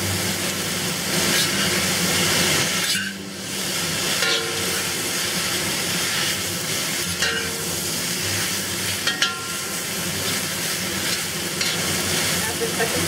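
Baby kale, mushrooms and bamboo shoots sizzling in a hot wok as they are stir-fried with a spatula, over a steady low hum. The spatula scrapes against the pan a few times.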